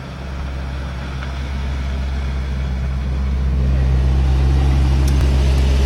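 Vehicle engine running with a steady low hum, getting louder over the first few seconds.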